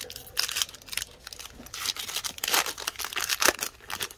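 A Topps WWE Heritage trading-card pack being torn open, its wrapper crinkling and tearing in a dense run of crackles.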